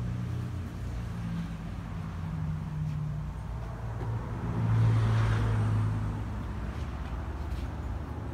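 Low motor hum and rumble with a few steady pitched tones, growing louder about halfway through and then easing off.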